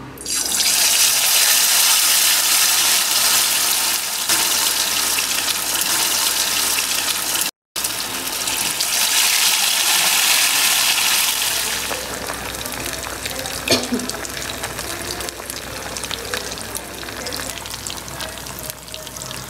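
Masala-marinated fish steaks frying in hot oil in an iron kadai: a loud sizzle starts as the pieces go into the oil, cuts out for an instant about halfway, and after about twelve seconds eases to a quieter, steady frying hiss with scattered crackles.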